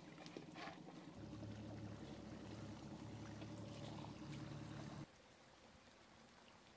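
Low, steady hum of a boat's motor, which cuts off abruptly about five seconds in, leaving only a faint hiss of air and water.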